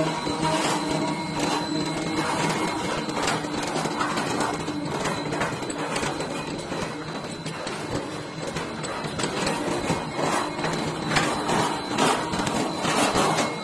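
Light gauge steel roll forming machine running, its forming rollers shaping steel strip into C/U channel: a steady mechanical whir with many small clicks and rattles, a little louder near the end.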